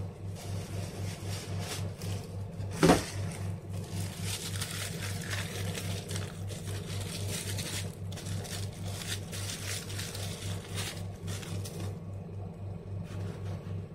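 A steady low machine hum pulsing about four times a second, with light clicks and rustles of handling over it. About three seconds in comes one sharp, short rising squeak, the loudest sound.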